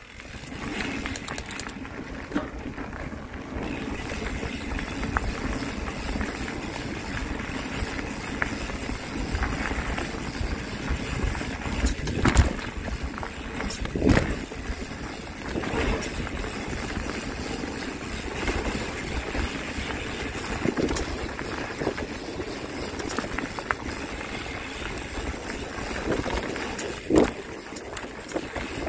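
Steady riding noise from a bike moving along a trail: continuous rumble and wind noise, with a few sharp knocks along the way, the strongest near the end.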